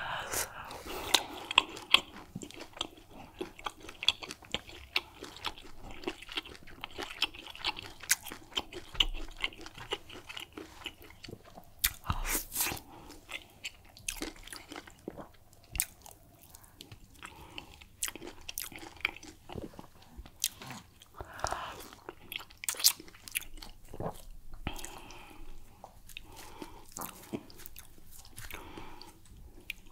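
Close-miked ASMR eating: wet chewing and mouth sounds with many irregular, sharp lip-smack clicks as soft swallow with egusi soup is eaten by hand.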